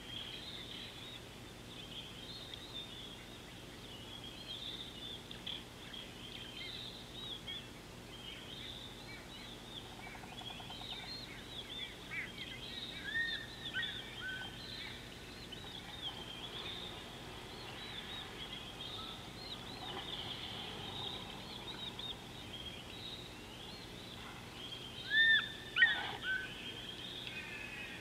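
Many wild birds chirping and twittering together over a faint steady hum, with a couple of louder calls near the end.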